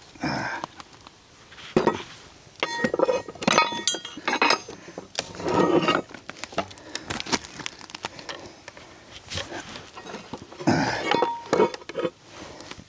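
Heavy cut steel plate pieces being handled and set down, knocking and scraping together in irregular clanks, some with a short metallic ring.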